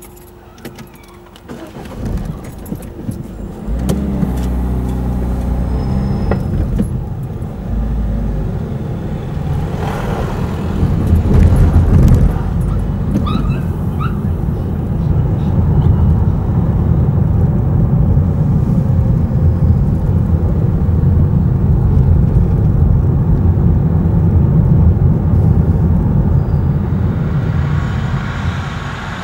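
Car pulling away from a standstill, its engine note rising about 2 seconds in. It settles into a steady low rumble of engine and tyres as the car drives on.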